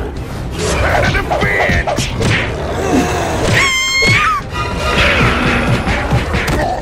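Cartoon fight sound effects over background music: repeated whacks and thuds, with a high-pitched squealing tone held for about a second near the middle.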